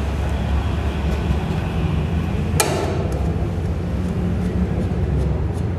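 Motorcycle engine idling steadily while the cart hitch is worked on. About two and a half seconds in there is a single sharp metal clank, and a few small clicks of tools on the hitch nuts follow near the end.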